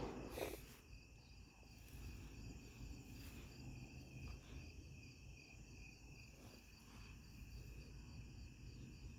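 Faint, even chirping of crickets in a rapid pulsing rhythm over a low background rumble.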